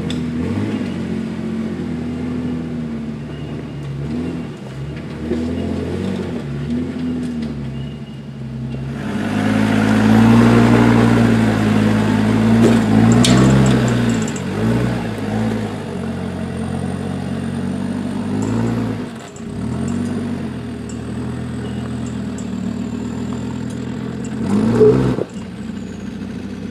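A four-wheel drive's engine revving up and down as the vehicle crawls over rocks. It is loudest in a hard burst of throttle about ten seconds in, and there is a short sharp peak a couple of seconds before the end.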